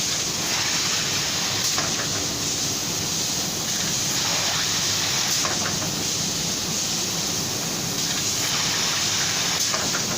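Hot-air plastic welding machine running, its blower giving a steady, even hiss of hot air.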